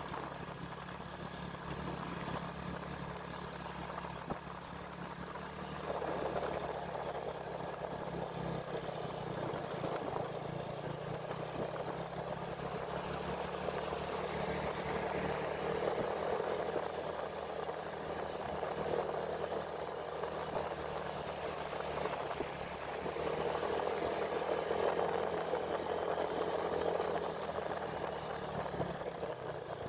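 A vehicle engine running at a steady speed, with a rushing noise of wind or road that comes in about six seconds in and swells twice.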